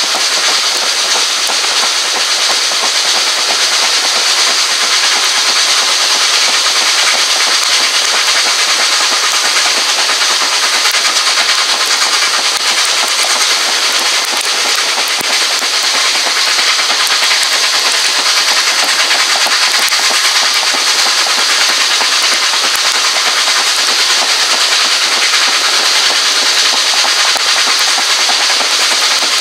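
Steam-hauled passenger train running steadily along the line, heard from an open carriage window: a continuous loud rushing hiss of passing air and running gear, with no distinct beats.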